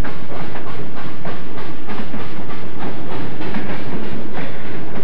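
Southern Pacific Daylight steam passenger train passing close by, its wheels clicking over the rail joints in a quick, even rhythm over a steady rumble.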